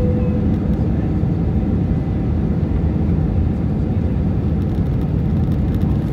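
Steady airliner cabin noise heard from a window seat beside the engine on final approach: the low rumble of the jet engines and airflow, holding an even level. A short steady tone sounds at the very start.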